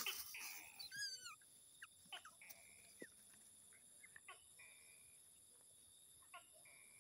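A brief scuffle as a cat pounces over an otter, followed about a second in by a quick run of high falling chirps. After that, only faint scattered ticks and short high tones over a quiet background.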